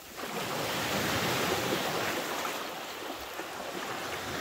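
Sea surf washing in on a sand beach, swelling suddenly at the start and easing off after about three seconds.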